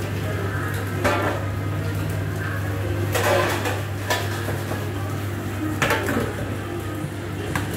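A metal fry basket and stainless steel pans clanking as deep-fried chips are tipped from the basket into a steel gastronorm pan, with a short rattle of the chips sliding in about three seconds in. A steady low hum runs underneath.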